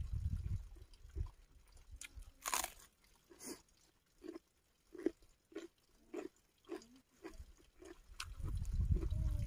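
Close-miked mouth chewing and crunching food, with chews coming about two a second in the middle. A low rumble sits under the start and comes back near the end.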